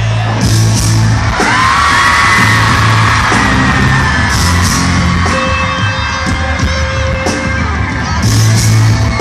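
Pop-rock band playing live in an arena: drum hits over a steady bass line, a voice singing, and the crowd yelling and singing along, with a large hall's echo.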